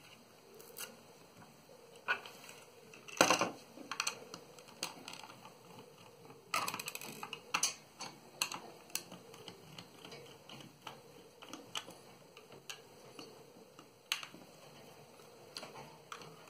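Irregular clicks and taps of a small screwdriver and fingers working on the plastic casing of a Logitech wireless mouse, as a screw on its underside is turned out. The loudest knock comes about three seconds in, with another cluster of clicks a few seconds later.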